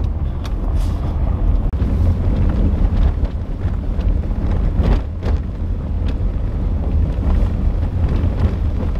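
Honda CR-V driving over a rough dirt road, heard from inside the cabin: a steady, loud low rumble of tyres and suspension, with several sharp knocks and clatters as it goes over stones and bumps.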